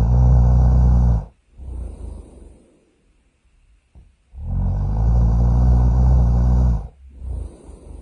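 Loud cartoon-style snoring. A long, loud, low-pitched snore ends about a second in and is followed by a softer breath out. A second snore of about two and a half seconds starts a little past four seconds, again followed by a softer breath near the end.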